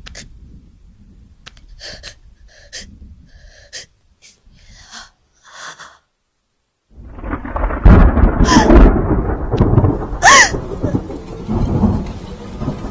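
Quick, sharp breaths and gasps, then a second of silence, then a loud rumbling, rustling noise with a brief high cry that rises and falls near its middle.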